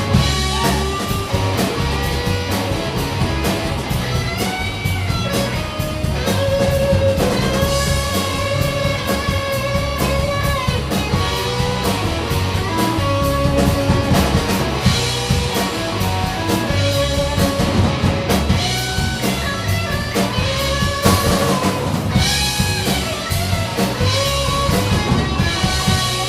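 Live rock band playing an instrumental break: a lead guitar melody that holds and bends notes over a steady drum kit and bass beat.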